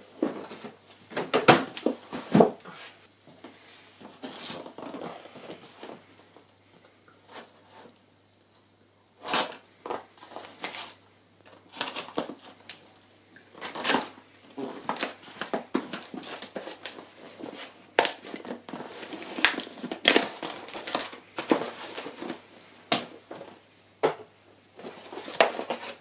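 Cardboard boxes being handled and opened, with crinkling packing paper: irregular scrapes, crackles and sharp knocks, broken by a short lull about a third of the way in.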